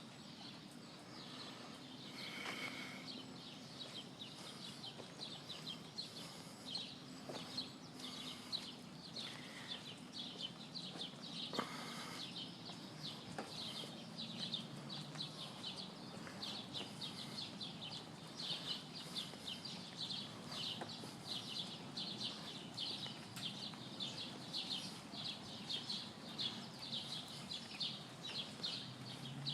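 Outdoor animal sounds: a steady, fast run of high chirps, with a short, louder call a couple of seconds in and another about twelve seconds in.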